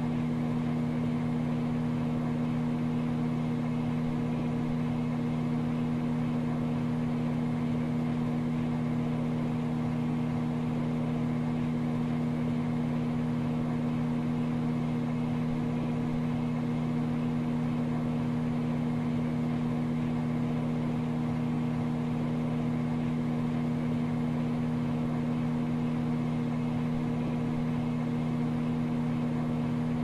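Microwave oven running: a steady low hum that does not change.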